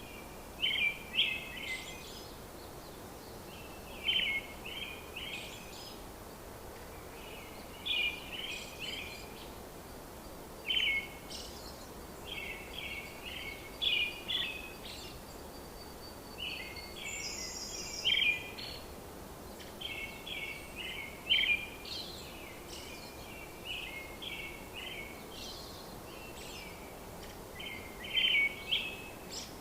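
Bird song: a songbird repeating a short phrase of quick chirping notes every few seconds over a steady background hiss, with a brief higher, faster run of notes about two-thirds of the way through.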